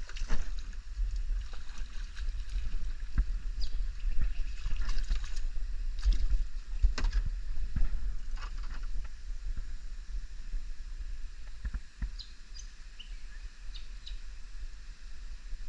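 Knocks and bumps from handling gear on a small boat, with water sounds, over a steady low rumble. The knocks are frequent through the first half and thin out later, when a few short high chirps come in.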